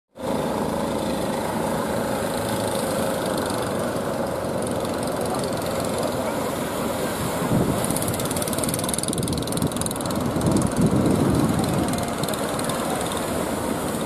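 Small engine of a wooden outrigger fishing boat running steadily as it motors across choppy water, its faint tone drifting slightly lower, over a constant rush of water. The rush swells louder about halfway through and again a few seconds later.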